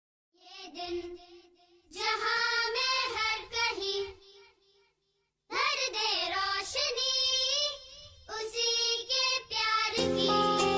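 A solo voice, likely a child's, singing unaccompanied in short phrases with pauses between them; instrumental music comes in near the end.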